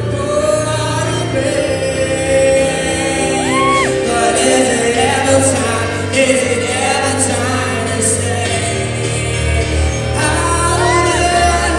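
Live rock band playing with a male lead singer, recorded loud from within the audience in a large hall, with a few shouts from the crowd.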